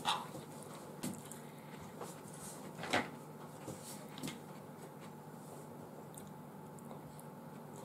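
Quiet eating: a few short mouth and utensil noises, the loudest about three seconds in, over a low steady hum.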